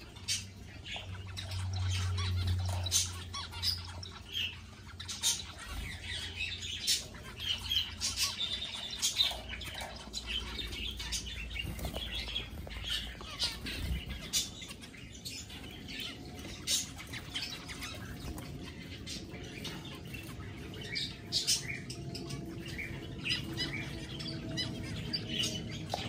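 A flock of aviary finches, mostly zebra finches with some Gouldian finches, calling all the time: a steady stream of short, overlapping chirps and beeps from many birds at once.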